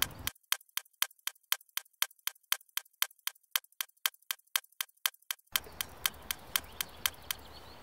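Fast, even clock ticking, about four ticks a second, as a countdown-timer sound effect. The faint background returns under it about five seconds in.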